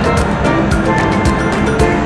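Background music with a steady drum beat and sustained tones.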